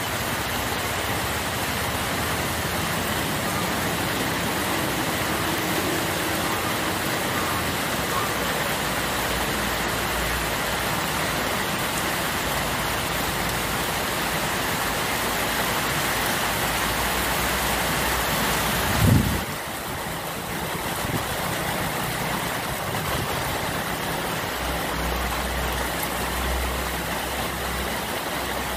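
Heavy tropical rain pouring steadily onto leaves and ground, with the low rumble of traffic on the road beyond, including a tanker truck passing. About two-thirds of the way through there is a single brief thump, after which the rain's hiss eases slightly.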